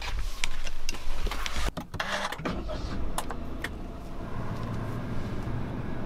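Getting into a Honda car: several clicks and knocks of the door and seat in the first two seconds, then from about four seconds in the engine running with a steady low hum.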